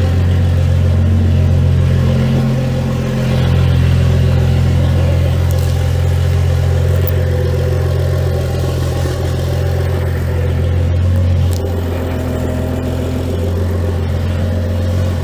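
BMW N55 turbocharged straight-six idling steadily, freshly rebuilt with an upgraded turbo, running without knocking. There is a slight drop in level a few seconds in and again near the end.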